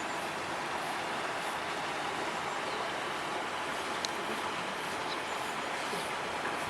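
Steady hum of distant traffic, with a single faint tick about four seconds in.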